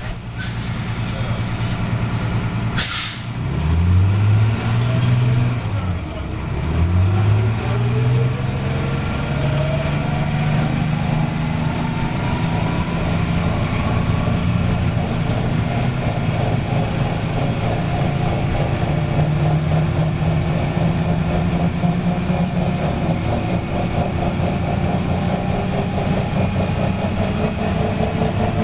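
Detroit Diesel 6V92TA two-stroke V6 diesel of a 1985 GMC RTS transit bus pulling away: a short hiss of air about three seconds in, then the engine revs up and drops back twice as the Allison V730 automatic transmission shifts up. After that it runs steadily under way, with a whine that rises in pitch and then holds.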